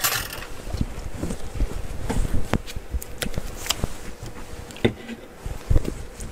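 Scattered light clicks and taps of handling on a tabletop, with a couple of duller thumps late on.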